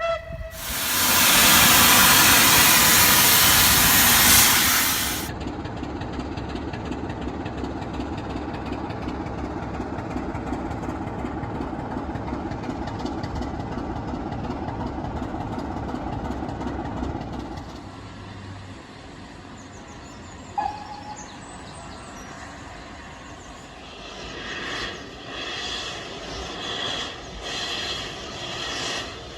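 Steam locomotive, likely BR Standard tank engine 80097, letting off a loud hiss of steam for about five seconds. The train's steady rumble follows, dropping away at about 18 seconds, then uneven clattering near the end.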